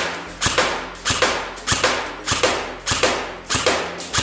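Double Bell M416 electric airsoft rifle firing single semi-automatic shots, about seven in a row a little under two a second, each a sharp report with a short echo, for a muzzle-velocity (FPS) check.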